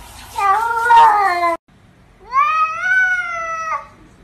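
Two long cat meows: the first drops in pitch toward its end, and after a short pause the second rises at first, then holds and stops abruptly.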